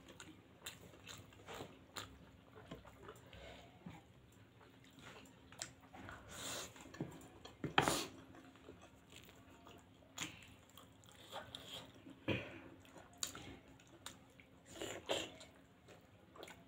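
Close-miked eating: two people chewing and biting soft spicy pasta and steamed paneer momos, with wet mouth smacks and irregular clicks, the loudest about eight seconds in.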